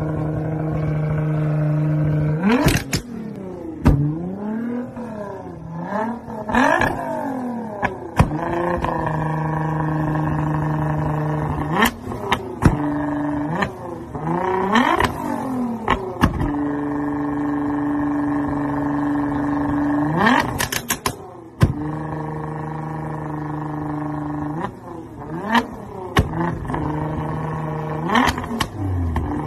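Nissan GT-R R35 twin-turbo V6 being revved while parked: the revs sweep up and down and are held steady for a few seconds at a time. Sharp exhaust pops and cracks break in repeatedly as the exhaust spits flames.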